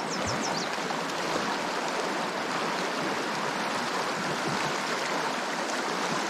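Steady rush of a swift river running high, at about 200 cubic feet per second.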